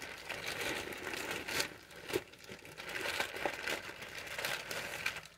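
Small-item packaging crinkling and rustling as it is handled, with many short, sharp crackles. The packaging holds press-on nail decorations.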